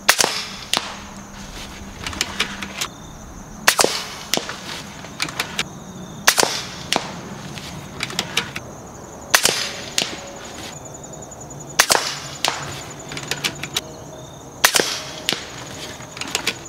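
A .25-calibre Kalibrgun Cricket PCP air rifle firing a steady string of slugs: six sharp cracks, one every two and a half to three seconds, with lighter metallic clicks of the side lever being cycled between shots.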